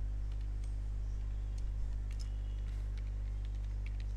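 Computer keyboard typing: a scatter of light, irregular key clicks over a steady low hum.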